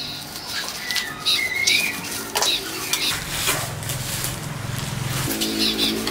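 Birds chirping, with light clicks and clatter of handling, over steady low tones that set in about halfway through.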